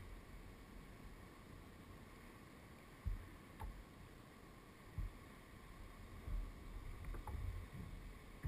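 Low wind rumble on the microphone and water moving against a kayak, with a few short dull knocks about three and five seconds in.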